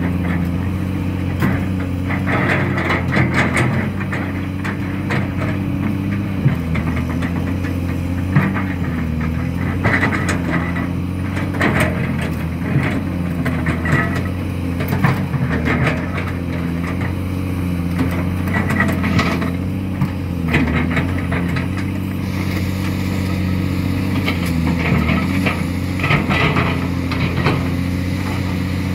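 Caterpillar 336D hydraulic excavator's diesel engine running steadily, its pitch sagging briefly every few seconds as the hydraulics take load, with frequent sharp clanks and scrapes of the bucket working through rock.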